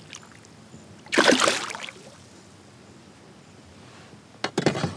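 A released largemouth bass splashing as it kicks free from the hand at the water's surface, in one short loud splash about a second in. Near the end comes a quick run of sharp clicks and knocks.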